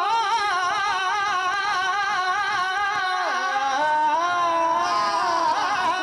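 A man sings a devotional kalam into a microphone: long held, ornamented notes with heavy vibrato. The line dips in pitch about three seconds in, then climbs back up to a high sustained note.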